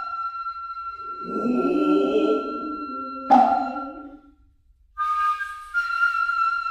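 Noh hayashi ensemble: a nohkan bamboo flute holds high, piercing tones that step in pitch. A drummer's drawn-out call (kakegoe) starts about a second in, and a sharp hand-drum stroke falls about three seconds in. After a brief break the flute comes back in.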